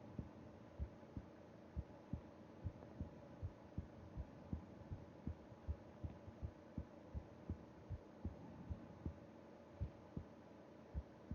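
A sleeping person's heartbeat picked up against the chest: a steady lub-dub, each beat a pair of dull low thumps, coming a little more than once a second over a faint hum.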